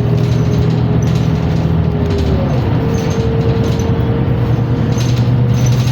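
New Flyer Xcelsior XN60 articulated bus under way: a steady drivetrain drone with a thin transmission whine that glides up to a higher pitch about two and a half seconds in. The whine is the unusual transmission sound of this bus.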